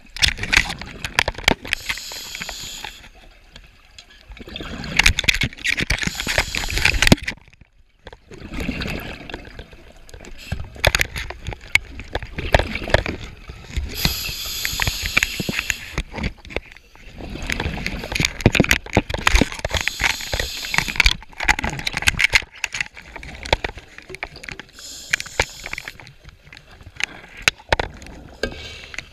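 Scuba diver breathing through a regulator underwater: loud rushing bursts of exhaled bubbles every several seconds, with quieter hiss and scattered clicks between them.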